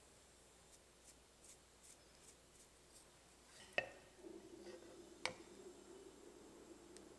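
Quiet kitchen handling: a few faint light ticks, then two sharp clinks about a second and a half apart as a glass jar of pickled cherry tomatoes and a wooden spoon are handled over a ceramic plate. A low steady hum comes in just after the first clink.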